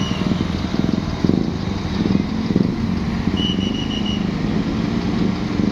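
Large diesel bus engine running close by as the bus pulls out, a deep pulsing rumble. About three and a half seconds in there is a short high trill of quick beeps.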